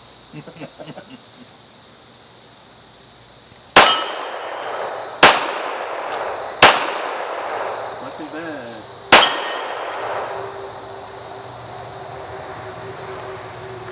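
Four shots from a Springfield Range Officer 1911 pistol, irregularly spaced over about five seconds. The first and last are followed by a brief metallic ring from a struck steel target. A steady high drone of insects runs underneath.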